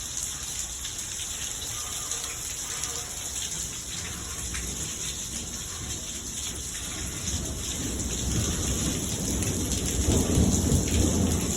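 Steady rain falling, a constant hiss. A low rumble grows louder over the last few seconds.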